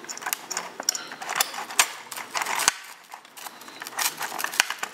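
Wicked Edge sharpening stones on their holders clicking and knocking together as they are handled in their box: a run of irregular sharp clicks and taps, several a second.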